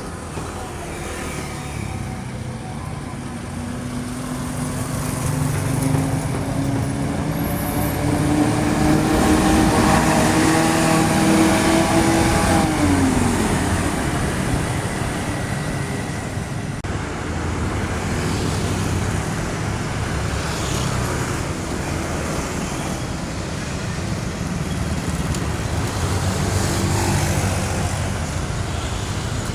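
Road traffic with heavy diesel vehicles going by. One engine's note climbs steadily for several seconds, gets loudest, then drops sharply as the vehicle passes about thirteen seconds in.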